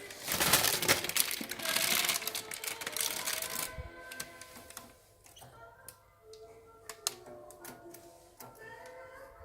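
Rapid clicking and rattling for the first few seconds, then a few scattered sharp clicks, over soft background music with held notes.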